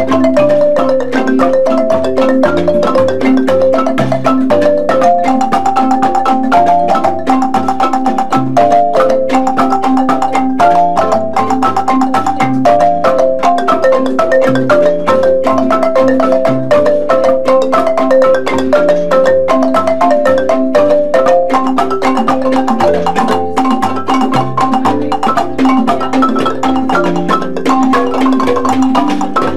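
Wooden marimbas struck with mallets, playing a fast, steady stream of repeating melodic notes with lower bass notes underneath.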